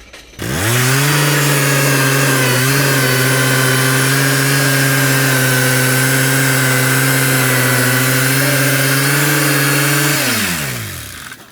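Motor of a homemade sawmill built from an old golf cart spinning up quickly, running at a steady speed for about ten seconds, then winding down near the end.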